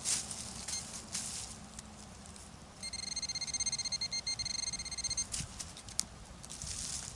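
Rustling and crackling in forest leaf litter. About three seconds in, a metal detector gives a steady high-pitched target tone that pulses quickly and lasts about two and a half seconds. A sharp click follows near the end.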